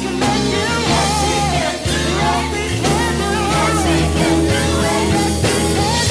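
Worship song: a voice singing a wavering melody over a band with sustained bass notes and a steady beat.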